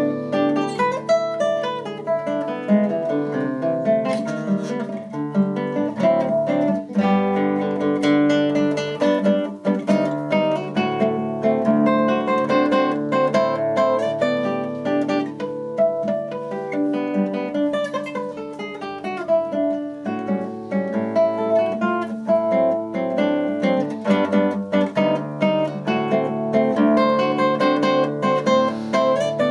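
Solo acoustic guitar playing a fingerpicked piece, a melody over a moving bass line, with runs of falling notes in the middle.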